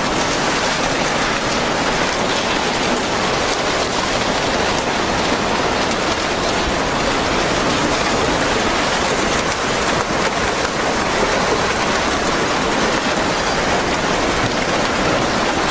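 Steady, loud rush of water, an even noise with no break or change.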